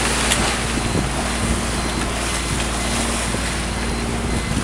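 Steady rush of wind on the microphone and water along the hull of a small sailing yacht under way, over a steady low hum from its engine.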